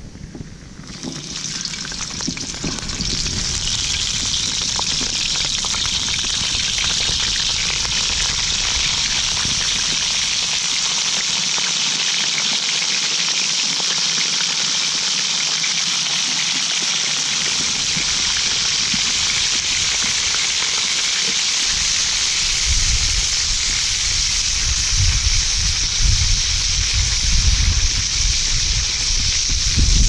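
Small whole octopuses sizzling in hot oil in a wok. The sizzle swells up about a second in as they go into the pan, then runs steady. Low rumbling comes in near the end.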